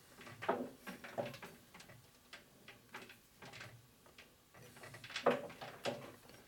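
Scattered light metallic clicks and knocks as a thread die in a hand die stock is turned by hand onto a steel stud held in a lathe chuck, the die just catching the thread. A few louder knocks come about half a second in and about five seconds in.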